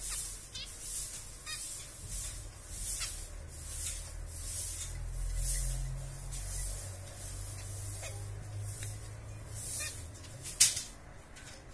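Zebra finches in a cage giving a few short, sparse chirps over a pulsing high hiss that comes back about every half-second to second. A single sharp click about ten and a half seconds in is the loudest sound.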